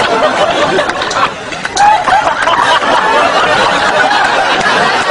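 A steady murmur of many voices chattering, with snickers and chuckles of laughter mixed in.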